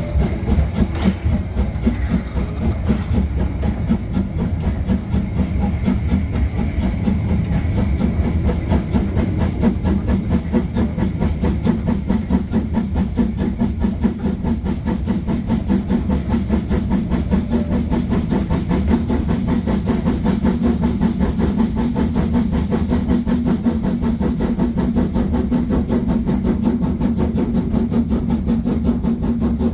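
Harz narrow-gauge 2-10-2T steam locomotive 99 7240-7 working hard up a 1:25 grade with a heavy seven-coach train: a rapid, even beat of exhaust chuffs over steam hiss and rail noise.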